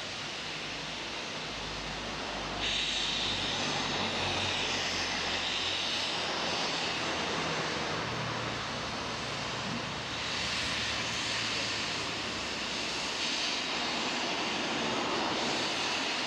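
Steam locomotive 46233 Duchess of Sutherland, an LMS Princess Coronation class Pacific, letting off steam in a steady loud hiss that grows louder about three seconds in, with a low hum underneath.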